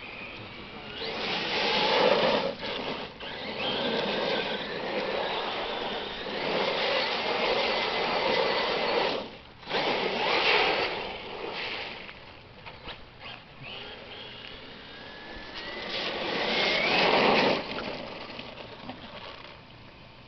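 Brushless electric motor of a radio-controlled car whining at speed, swelling and fading several times as the car makes passes, its pitch gliding up and down.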